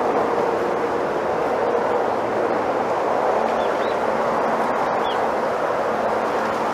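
Wind blowing steadily through a bamboo grove, the swaying leaves and stems giving an even, rushing rustle. A few faint high chirps come in over it about halfway through.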